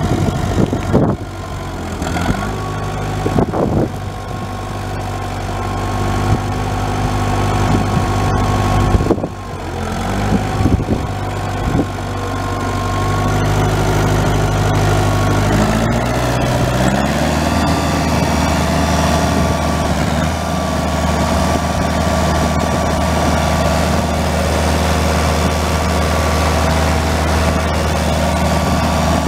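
1962 Farmall 504's four-cylinder gasoline engine running at a steady idle, with a few thumps in the first several seconds. A little over halfway through it is throttled up, rising in pitch, and then runs on steadily at the faster speed.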